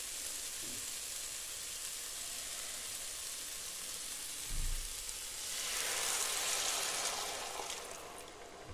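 Rice, shredded red cabbage and sausage sizzling as they brown in a Russell Hobbs multicooker's pot, stirred with a wooden spoon. The sizzle swells for a few seconds past the middle, and there is a low thump about four and a half seconds in.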